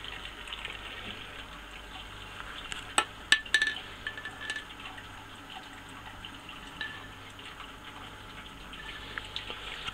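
Hot sparge water trickling steadily from a silicone hose onto a stainless perforated sparge plate over the mash grain bed, with a low hum underneath. A few sharp metallic clinks come about three seconds in.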